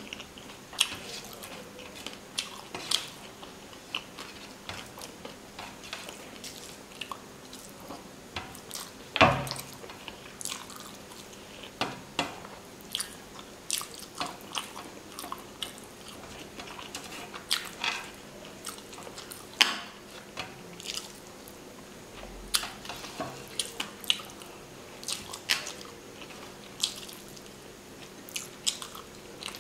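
Close-up eating sounds from someone eating fish curry and rice by hand: wet chewing and smacking with irregular sharp clicks, the loudest about nine seconds in.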